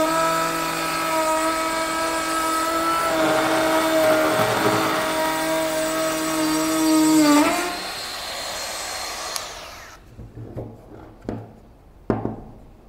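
Trim router running at full speed while cutting a groove in a wooden batten. It is switched off about seven and a half seconds in and winds down, and a few light knocks follow.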